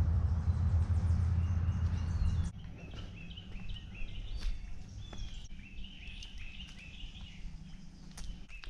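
A low rumble on the microphone that cuts off about two and a half seconds in, then a songbird singing in the woods: a run of short, repeated chirping notes.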